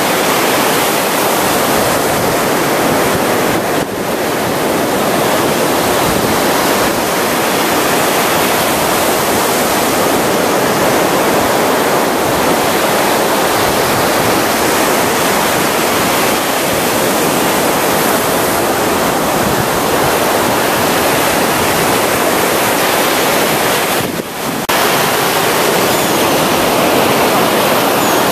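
Ocean surf washing onto the beach: a steady, loud rush of waves that dips briefly twice.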